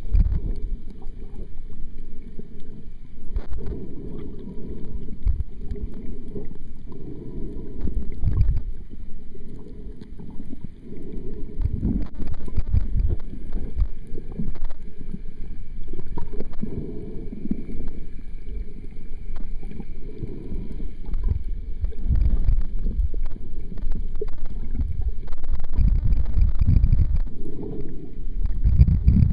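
Muffled underwater swishing and rumbling of water moving past a camera held underwater, rising and falling in irregular swells every few seconds.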